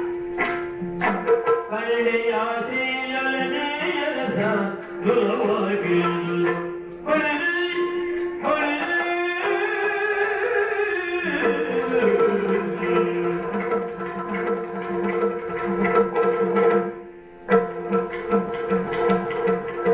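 Yakshagana music: the bhagavata sings a verse over a steady drone, accompanied by maddale and chande drums. The singing stops about halfway through, and the drone and drumming carry on with a steady beat, dipping briefly near the end.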